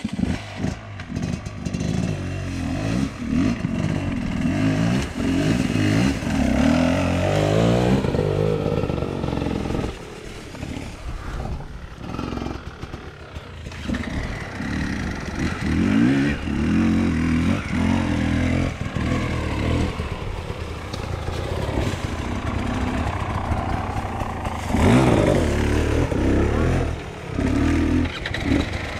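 Enduro dirt bike engines revving hard on a hill climb, the pitch rising and falling again and again as the throttle is worked. The engines ease off for a few seconds around ten seconds in, then pick up again, loudest near the end.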